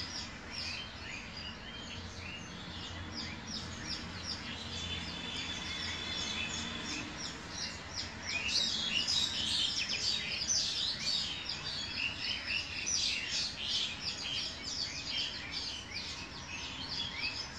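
Many small birds chirping together in a dense, continuous chorus of short high chirps, growing busier and louder about halfway through.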